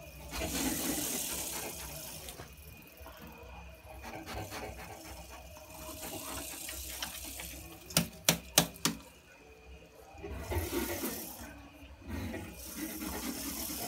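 Porcupine moving about on dirt and leaves, rustling and scraping. A quick run of four sharp clicks comes a little past halfway.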